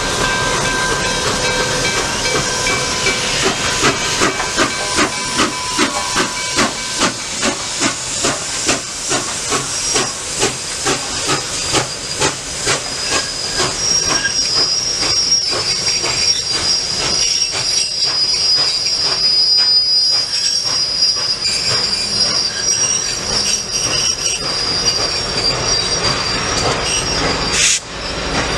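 Nickel Plate Road 765, a 2-8-4 Berkshire steam locomotive, passing with rhythmic exhaust chuffs at about two a second and a hiss of steam. From about halfway, its passenger cars roll by with a steady high wheel squeal.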